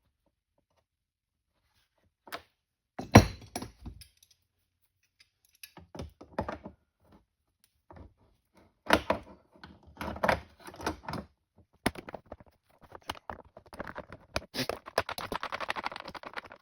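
Crescent wrench and the RamBox lock assembly's metal parts clicking and knocking as the lock is worked loose. There is a sharp knock about three seconds in, scattered bursts of clicks, and a rapid rattling near the end.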